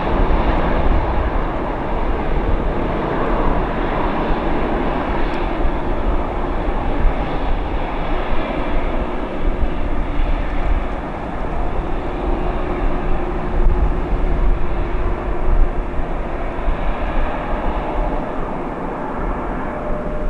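Airliner jet engines running, a steady loud rushing noise with faint steady whining tones in it.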